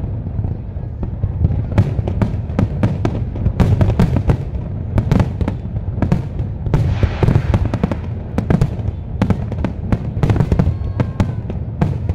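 Fireworks display: a rapid barrage of aerial shells bursting, several booms a second, with a spell of crackling about seven seconds in.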